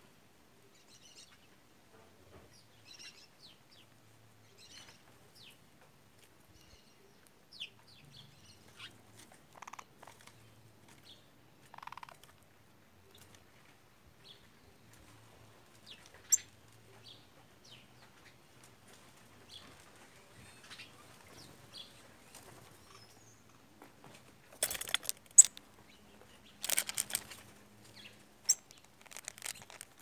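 White woodpeckers: faint scattered bird chirps and light ticks, then near the end a loud flurry of wing flapping and scuffling close by as a woodpecker lands.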